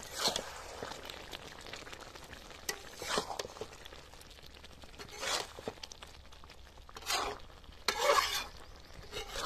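A flat metal spatula scraping and stirring a thick egg, soya-chunk and potato curry in a metal kadai, in about six separate strokes, the longest about eight seconds in. The curry sizzles quietly underneath.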